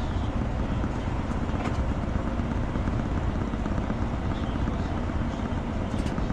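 A steady, low droning noise with no break or change in level, with a couple of faint clicks near the end.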